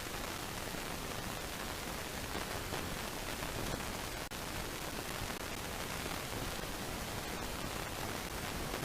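Steady, even static-like hiss from a nest camera's audio feed, with no bird calls standing out.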